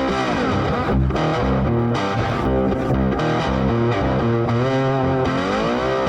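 Background music led by a distorted guitar with effects, its notes sliding in pitch over a steady low part.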